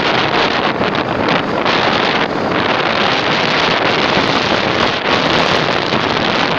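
Loud, steady wind noise blowing across the microphone of a moving motorbike.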